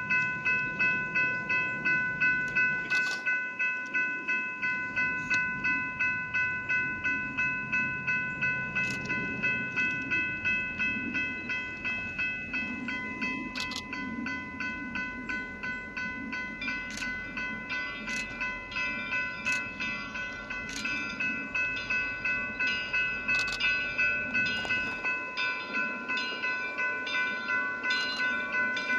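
Railroad crossing warning bell ringing steadily at about two to three strikes a second, over the low rumble of steam locomotive No. 425 and its train approaching in the distance.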